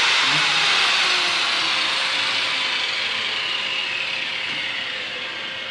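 Whirring machine noise with a hiss to it and a faint falling whine, slowly fading.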